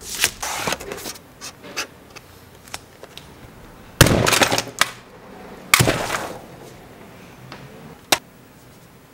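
Cellophane shrink wrap crinkling as it is torn off a boxed VHS tape, then two loud hammer blows on the tape's packaging, about four and about six seconds in, and a sharp click near the end.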